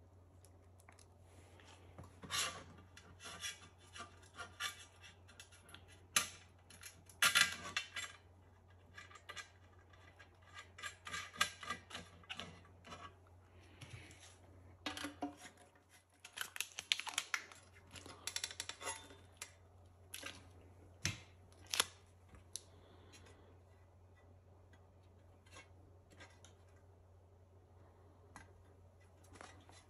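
Stainless steel door handle and small fittings being handled and fitted by hand: irregular metal clicks, clinks and short scrapes, busiest through the middle and dying away about three-quarters of the way through.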